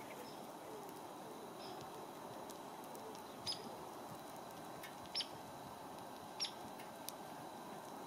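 Three short, high ticks spread over a few seconds from a dark-eyed junco at a metal hopper bird feeder, over a faint steady outdoor hiss.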